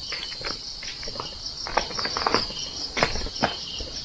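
Night-time chorus of crickets, a steady high pulsing trill, with a few footsteps and scuffs close by.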